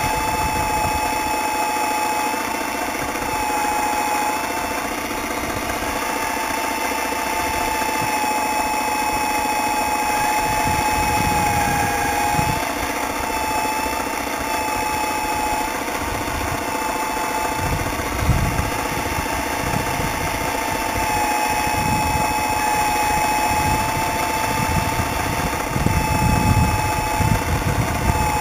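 Electric hydraulic pump of a radio-controlled miniature CAT 320 excavator whining steadily, its pitch sagging briefly every few seconds as the boom and arm move under load. A few low thuds come about two-thirds of the way in and near the end.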